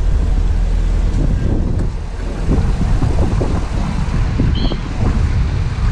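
A P-51 Mustang's piston engine running at low idle as it taxis, a steady low rumble, with wind buffeting the microphone.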